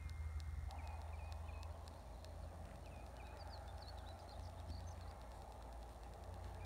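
Outdoor background in an open field: a steady low rumble, faint short bird chirps, and soft footsteps on grass as a person walks away.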